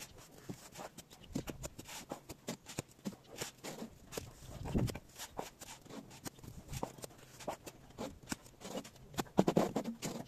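Plastering trowel scraping mortar out of a steel wheelbarrow and throwing it onto a brick wall: a steady run of short metal clicks and taps, with a few louder thuds about five seconds in and near the end.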